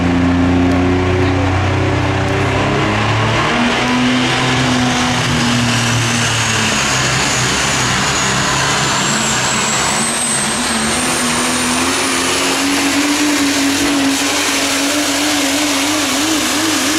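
Super stock diesel pulling truck running flat out under the load of the sled, loud and steady. A high turbo whistle climbs in pitch through the first part of the pull and then holds.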